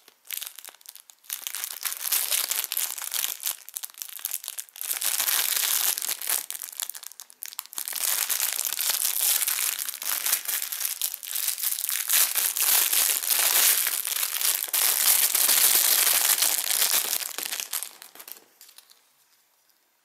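Thin clear plastic packaging bag crinkling as hands handle and open it, in long crackly stretches with a few short pauses, dying away near the end.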